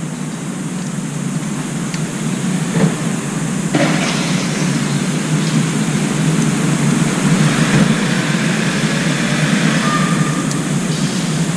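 Steady low rumble of a vehicle or traffic that gets louder about four seconds in, with a few faint clicks over it.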